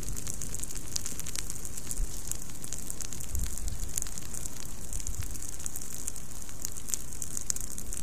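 Low flames of a controlled burn creeping through dry leaf litter, crackling with many small sharp pops over a steady hiss.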